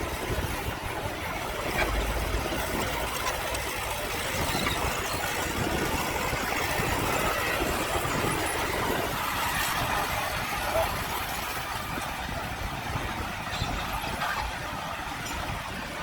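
Heavy earthmoving machinery's diesel engine running steadily, as on a small bulldozer or dump truck at work.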